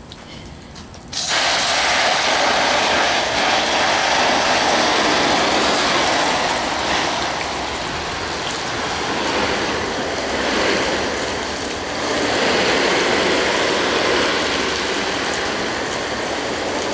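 Garden hose spray nozzle on its shower setting spraying water onto a Tyvek tarp. The spray starts suddenly about a second in and then runs steadily, with water pattering on the tarp.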